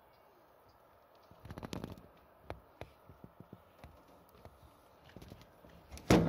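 A cat moving about in a wire pet cage: a short stretch of rustling on a blanket and scattered light taps of its paws on plastic, then one loud thump near the end.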